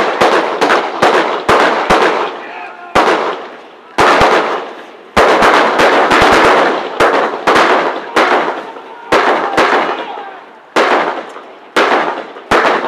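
Guns firing blank rounds: a dozen or more loud shots at irregular intervals, some in quick clusters, each ringing out with an echo.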